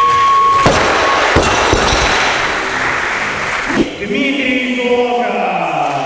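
Crowd cheering and shouting, with several heavy thuds in the first few seconds.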